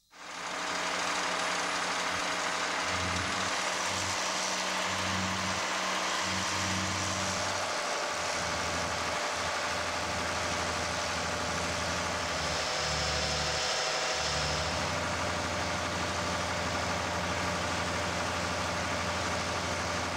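Truck-mounted exploration drill rig running: a steady engine drone with an even hiss over it.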